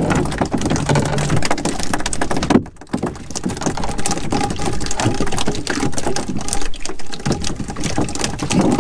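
Crackling wind noise on the microphone and water slapping against a small open boat's hull, full of scattered clicks and ticks, dipping briefly about three seconds in.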